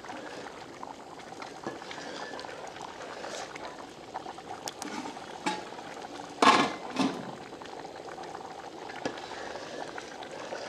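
Rice and water boiling hard in a large aluminium pot, a steady bubbling. About six and a half seconds in there are two loud knocks half a second apart.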